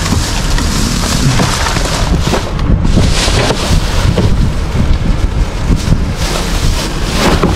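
Wind buffeting the microphone: a loud, uneven rush of noise that rises and falls in gusts.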